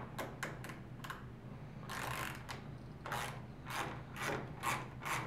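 A Phillips screwdriver turning a screw out of the plastic corner camera housing of a SMART Board M600 interactive whiteboard: a few clicks at first, then from about three seconds in a regular run of short scraping strokes, about two a second, as the driver is worked round.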